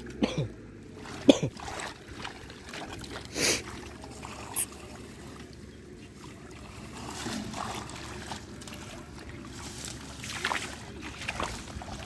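Hands sloshing and splashing in shallow muddy water, groping through mud and water hyacinth to hand-catch catfish. A few sharper splashes stand out in the first five seconds.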